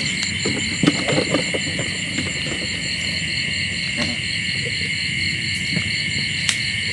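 Night chorus of field insects such as crickets: a steady high-pitched trilling with a faster pulsing note above it. There are a couple of faint clicks about four and six and a half seconds in.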